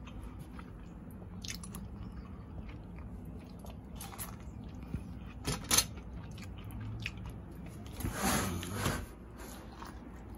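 Biting into and chewing an ear of sweet corn on the cob, with a louder crunchy stretch of about a second near the end. A few faint clicks come before it.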